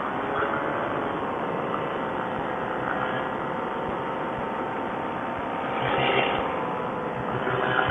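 Paramotor engine and propeller running steadily, with two brief louder swells about six seconds in and near the end.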